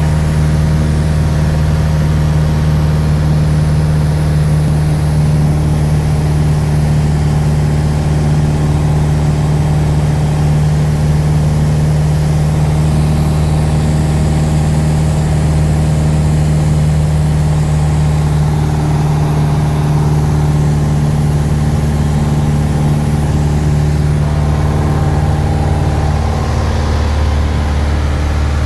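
Piper PA-28 light aircraft's piston engine and propeller droning steadily in cruise flight, heard inside the cabin.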